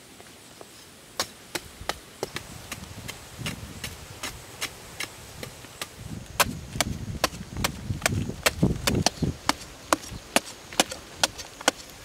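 A long-handled metal digging blade striking hard, dry earth over and over, about two to three sharp strikes a second starting about a second in, with heavier thuds and loosened soil crumbling in the middle of the run.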